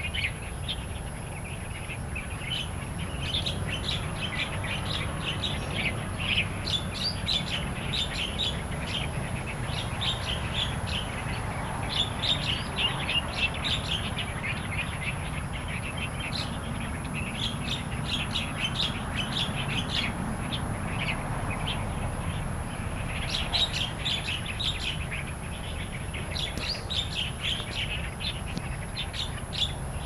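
Small songbirds chirping in quick runs of short notes, busiest in the first half and again near the end, over a low rumble.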